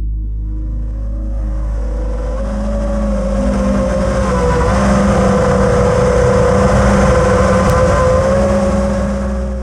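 5-inch FPV quadcopter's 2206 brushless motors and propellers whining steadily, the sound swelling as the throttle comes up and easing off near the end.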